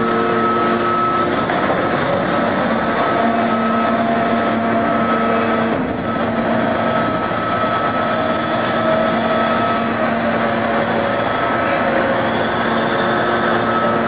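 Mining rope shovel and haul truck working, a steady loud machine noise with several humming tones that come and go.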